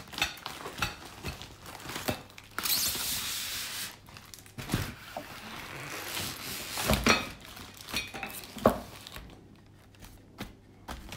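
Clear plastic air-column packaging rustling and crinkling as pink cardboard tubes are slid out of it, with a longer stretch of rustling about three seconds in and several knocks of the tubes against the table.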